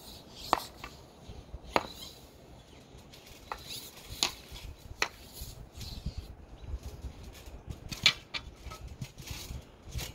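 Hockey stick blade clacking against a rubber puck on a trampoline mat: a string of sharp, irregular clacks spaced a second or so apart.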